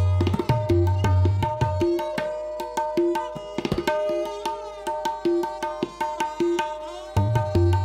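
Tabla solo: a fast run of crisp strokes on the dayan (the right-hand drum) over a steady held tone. Deep bayan (left-hand bass drum) strokes, bending up in pitch, fill the first two seconds, drop out, and come back about seven seconds in.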